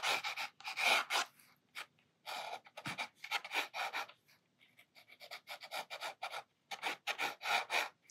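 Fine-tip Sakura Micron ink pen scratching across textured watercolour paper in quick short strokes, with a couple of brief pauses.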